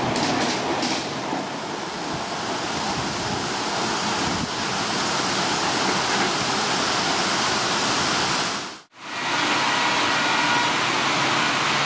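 Torrential monsoon rain pouring down in a heavy, steady rush. In the first second the last coaches of a passing express clatter over the rail joints. The sound cuts out for a moment about nine seconds in, then the downpour resumes.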